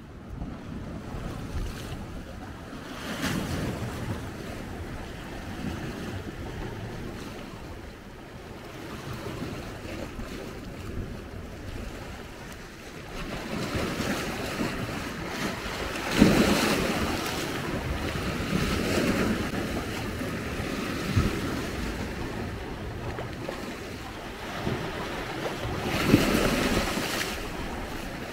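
Sea waves washing against the shore in recurring surges, a few ending in sharper slaps of water, with wind buffeting the microphone.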